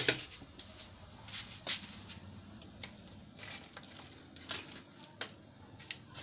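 Irregular small clicks, taps and short scrapes of hand tools being handled on a workbench, with a sharper click right at the start, over a low steady hum.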